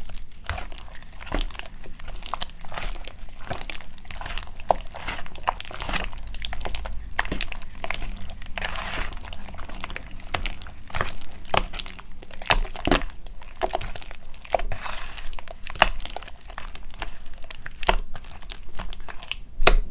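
Hands squeezing and kneading thick, wet gym chalk paste in a bowl: a continuous run of sticky, irregular crackles and squishes, with sharper pops here and there.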